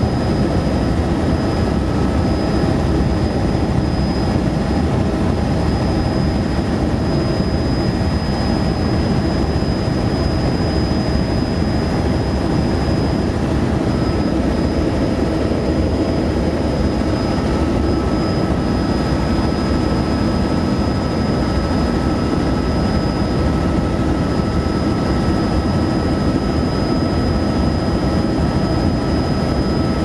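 Helicopter in flight heard from inside the passenger cabin: a loud, steady drone of engine and rotors with a constant high whine over it.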